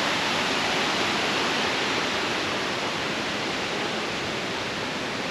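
Steady rushing of waterfall water, an even hiss with no breaks, easing off slightly toward the end.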